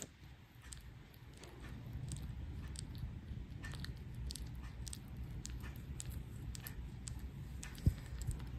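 Kitten mouthing and chewing on a finger: scattered small wet clicks and smacks over a low rumble of the hand handling it close to the microphone, with one sharper knock near the end.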